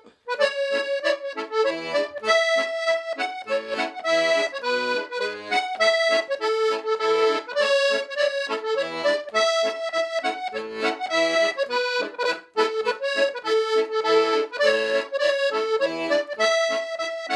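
Accordion music playing a lively melody, in the manner of Scottish traditional music.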